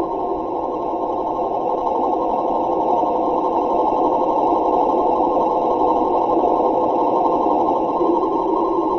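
A radio receiver playing a steady, snore-like rushing signal that goes on without a break, dull and muffled with little treble.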